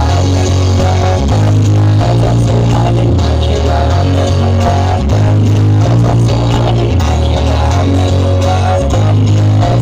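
Loud music played through a large sound-system rig of CLA speaker boxes, dominated by a heavy droning bass line that steps between notes about every second.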